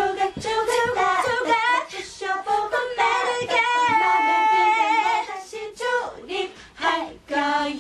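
K-pop girl group singing live into microphones, with several voices on the song's closing lines. A long note is held in the middle, and the singing stops at the very end.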